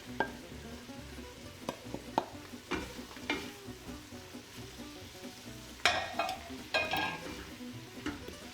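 Onions sizzling gently in olive oil in a stock pot as freshly chopped herbs are stirred in, with a spoon knocking and scraping against the pot several times.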